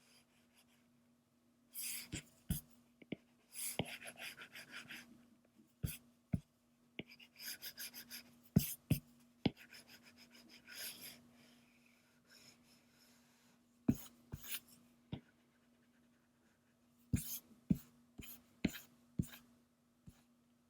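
Scratchy rubbing of a color pencil and eraser on sketchbook paper, coming in several short bouts with sharp taps and quiet gaps between them. A faint steady hum runs underneath.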